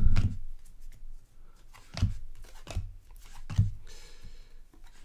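Baseball trading cards being handled on a table: a few short soft knocks as cards are flipped and set down, and a brief papery slide near the end.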